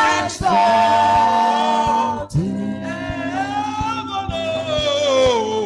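Gospel worship singing: a voice draws out the words 'to exalt' in long, held notes that bend in pitch, over musical accompaniment.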